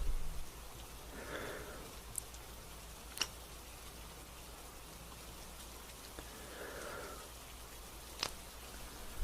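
Gentle steady rain with a few sharp drip-like ticks, and a person's soft breaths twice, about a second in and again around seven seconds.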